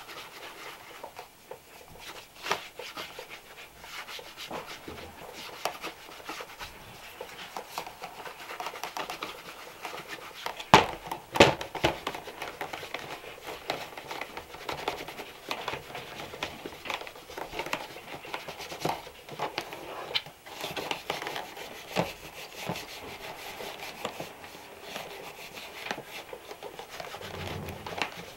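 Irregular rubbing strokes on a leather shoe during hand shoe care, with two louder knocks near the middle.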